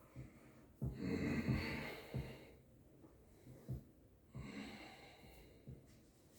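A person breathing hard from exertion: two long noisy breaths, the first the louder, with a few soft thumps between them.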